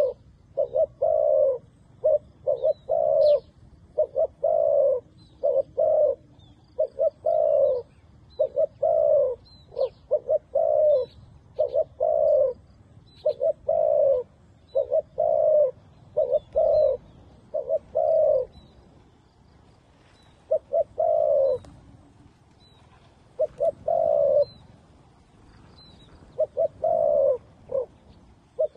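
Doves cooing over and over in phrases of a few short coos and a longer one, with a brief lull past the middle. Faint high chirps of small birds come through now and then.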